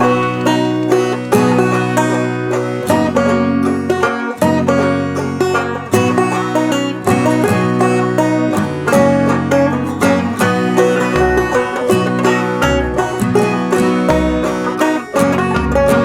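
Background music: a fast, upbeat plucked-string tune in a bluegrass style, with deep bass notes joining about eleven seconds in.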